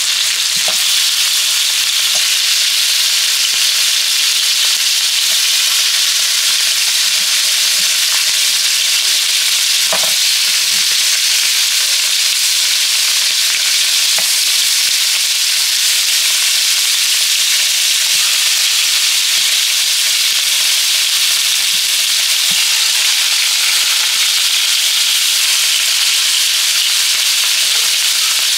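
Oxtail pieces browning in hot oil in a pot, sizzling and spitting in a steady hiss.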